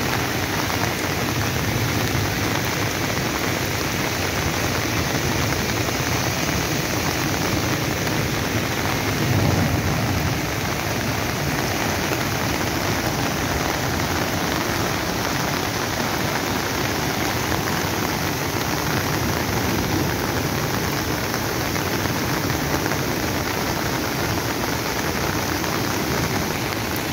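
Flooded, muddy mountain stream rushing over boulders in heavy rain: a steady wash of water noise, with a brief low swell about nine seconds in.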